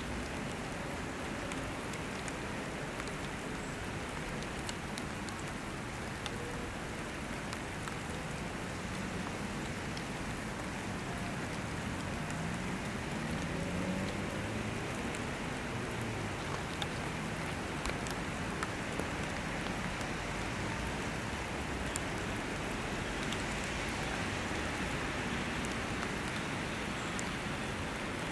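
Steady rain falling on wet tarmac, an even hiss with occasional sharp drop ticks. A faint rising and falling hum passes around the middle.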